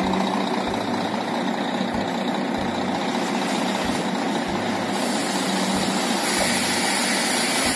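Tipper truck's diesel engine running steadily while its raised dump body unloads sand.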